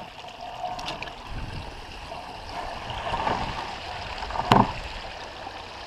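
Shallow creek water trickling over stones as someone walks along the stony creek bed, with one sharp knock about four and a half seconds in.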